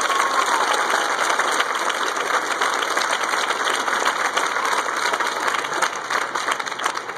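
Audience applauding and cheering at the end of a performance: dense, steady clapping that begins to fade near the end.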